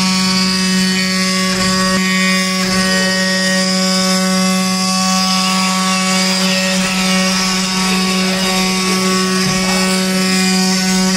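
CNC wood-carving router spindle running with a steady whine at one constant pitch as the bit carves into wood.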